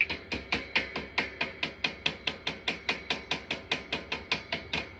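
Chipping hammer rapidly tapping a fresh weld bead to knock off the slag, about five sharp metallic strikes a second, stopping just before the end.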